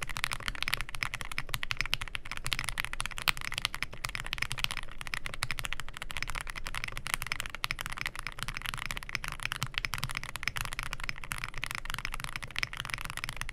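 Fast, continuous typing on a Zoom65 EE V2 65% mechanical keyboard: a dense clatter of keystrokes without a pause.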